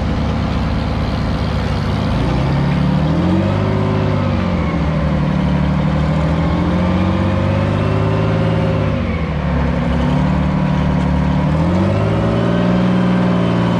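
Euclid rock truck's diesel engine pulling the truck along, its revs rising and falling three times as it accelerates and eases off.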